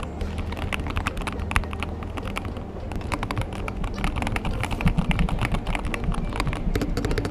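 Typing sound test on a Keychron K2 HE keyboard with magnetic Hall-effect switches and factory-lubed keys and stabilisers: a quick, irregular run of keystrokes that sounds quiet rather than clicky.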